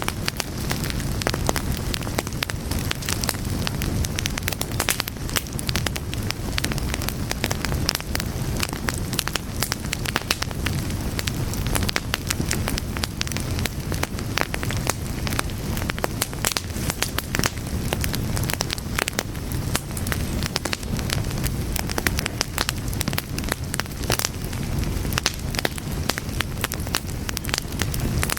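Fire crackling steadily: dense, irregular pops and snaps over a low, continuous rumble of flames.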